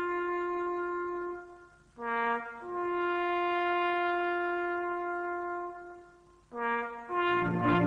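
Slow solo brass melody: long held notes, each followed by a brief dip and a short two-note figure. Near the end other brass instruments join in harmony.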